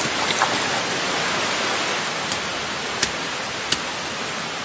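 Heavy summer downpour: rain pouring down as a steady hiss, with a few sharp ticks scattered over it.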